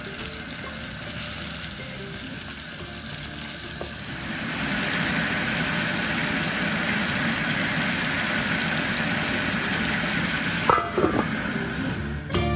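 Seared chicken thighs sizzling in a frying pan with fried garlic and ginger. The sizzle gets louder about four seconds in, and a utensil clinks against the pan a couple of times near the end.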